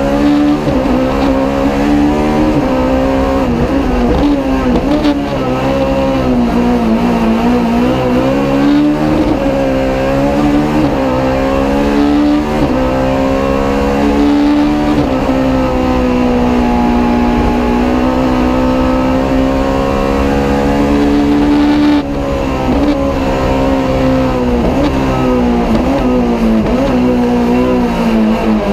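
Race car engine heard from inside the cabin, revving hard at full throttle and repeatedly climbing and falling in pitch through gear changes and corners. About 22 seconds in, the revs drop suddenly.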